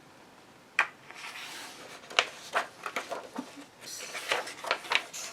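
Paper pages of a paperback coloring book being flipped and handled: rustling, with a sharp snap about a second in and several quick page flicks after it.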